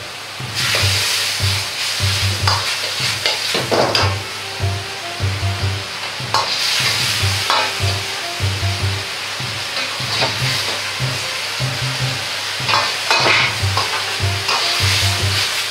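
Sauce sizzling and bubbling in a hot wok as a ladle stirs the vegetables and seafood through it, with repeated scrapes and knocks of the ladle against the wok; the starch slurry is being stirred in to thicken the sauce.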